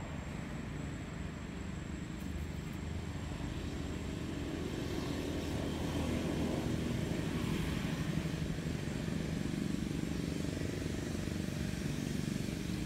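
A vehicle engine running steadily, its hum growing louder about a third of the way in and holding.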